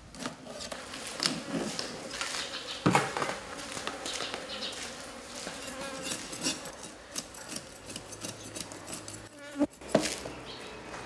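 Knife scraping scales off fish on a plastic box lid: repeated rasping strokes with clicks of the blade, and two sharper knocks, about three seconds in and near the end. A faint steady buzz runs behind it.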